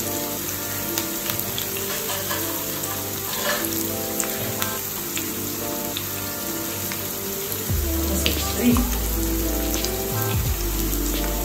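Chopped chocho (chayote), onion, sweet pepper and scallion sizzling in oil in a nonstick frying pan, with soft background music. There is low bumping from handling in the last few seconds.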